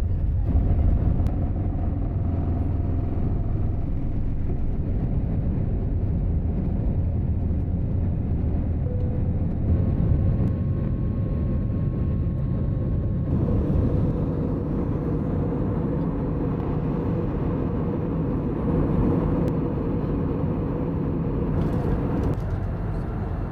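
Steady low rumble of an airliner heard from inside the cabin, its sound changing about 13 seconds in.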